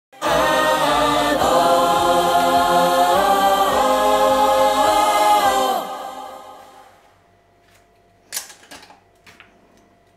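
A choir holding a sung 'aah' chord, moving through a few slow chord changes for about six seconds and then fading away. Near the end come a few light clicks and taps.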